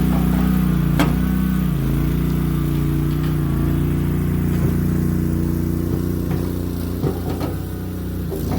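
Mini skid steer engine running steadily, its pitch dipping briefly about two seconds in as it takes a load, with a few sharp knocks from the machine along the way.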